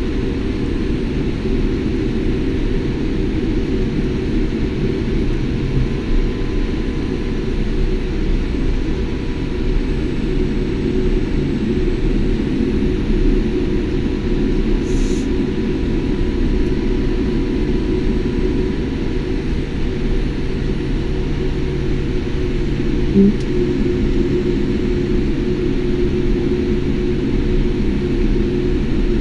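Steady cabin noise inside a Boeing 787 taxiing after landing: a dense low rumble from the engines at taxi power and the rolling airframe, with a faint steady tone above it. A short bump comes about three-quarters of the way through.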